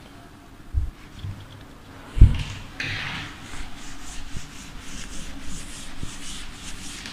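Board duster rubbing chalk off a blackboard in quick repeated back-and-forth strokes, the board being wiped clean. Two dull thumps come before the wiping starts, the second just after two seconds in and the loudest.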